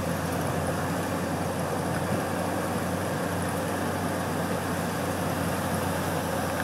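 Land Rover engine running steadily while driving, heard from inside the cab, with an even low drone and steady road noise.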